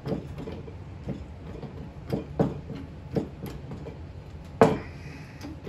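Irregular metallic clicks and clanks from a chain pulling rig being tightened to straighten a bent motorcycle frame tube, with a sharper clank that rings briefly about four and a half seconds in.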